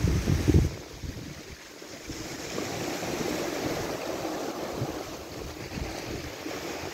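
Small waves lapping and washing in shallow water, with wind buffeting the microphone in a loud low rumble for the first second.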